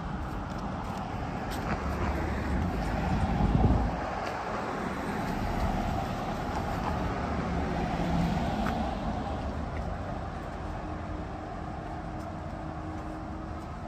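Road traffic passing, a steady wash of engine and tyre noise. It swells loudest about three to four seconds in and again more lightly around eight seconds, as vehicles go by.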